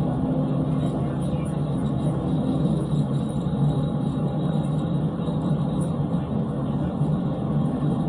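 Steady engine and road noise inside a police cruiser driving fast in a pursuit, a continuous low drone with no breaks.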